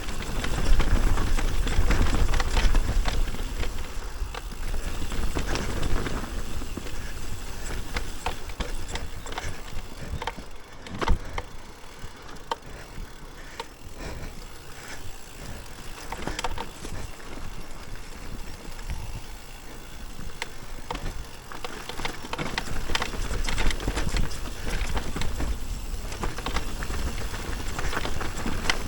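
Mountain bike riding down a rough dirt trail: continuous tyre rumble with many small rattles and knocks from the bike over the ground, and one sharp knock about eleven seconds in.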